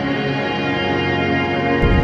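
Ambient background music of steady, sustained tones, with a deeper low layer coming in near the end.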